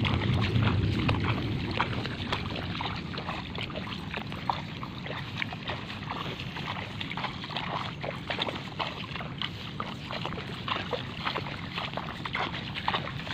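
Water sloshing and splashing with many small irregular splashes, as of movement through shallow water.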